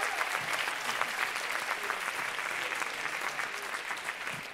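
Audience applause: many people clapping together in a dense, even patter that starts to thin out near the end.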